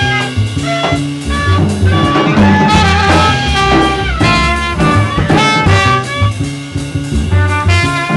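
Live jazz jam: a saxophone playing a melody over hand-played conga drums.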